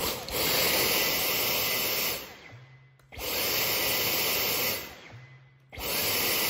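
Dyson cordless stick vacuum switched on three times, running steadily for about two seconds each and cutting off sharply in between. Its suction pulls the soft dusting brush's own bristles into the nozzle.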